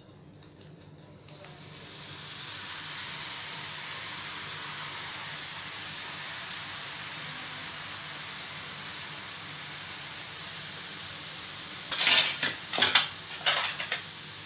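Sev (gram-flour noodle dough) pressed into hot oil and deep-frying, a steady sizzling hiss that starts about a second in and builds to full strength. Near the end comes a quick run of loud, sharp knocks.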